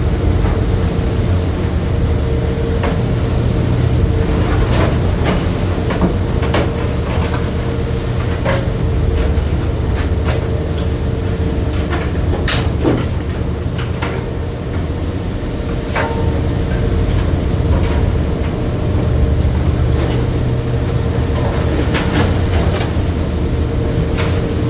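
Crab boat's engine running steadily with a constant hum, under scattered sharp knocks and clatter from work on deck.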